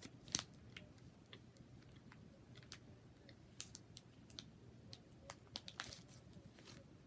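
Quiet chewing of a venison snack stick, with irregular small mouth clicks and smacks.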